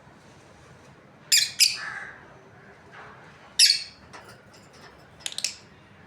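Lovebirds giving sharp, shrill chirps: a quick double call, a single call about two seconds later, and a fast cluster near the end.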